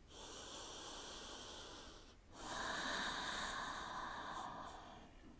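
A woman breathing slowly and audibly: a soft breath of about two seconds, a short pause, then a louder breath of about two and a half seconds.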